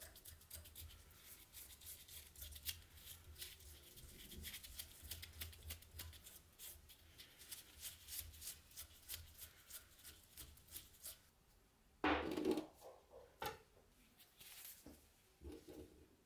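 Small metal clicks and ticks as a threaded steel rod is turned by hand through a thread-cutting die, with a nut and washer rattling on it, over a low hum. About twelve seconds in comes a short, louder scraping clatter, followed by a few light knocks.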